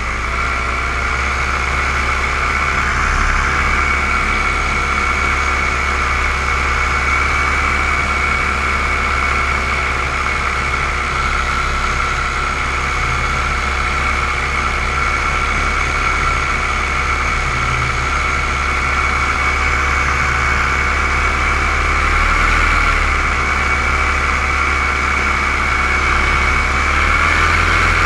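Paramotor engine and propeller running steadily in flight, a loud continuous drone with a high whine. The pitch wavers briefly about 22 seconds in and again near the end.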